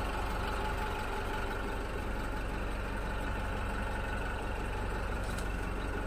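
Tata 407 minibus engine idling steadily, heard from inside the passenger cabin.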